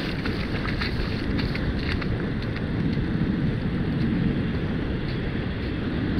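Wind buffeting the microphone in a steady low rumble, over the wash of surf running up the sand. A few faint clicks come in the first two seconds.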